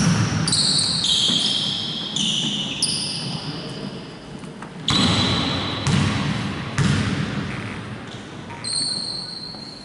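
Basketball bouncing on a hardwood gym floor: a series of echoing thuds, about a second apart in the second half. High sneaker squeaks on the wooden floor are heard over the first few seconds and again near the end.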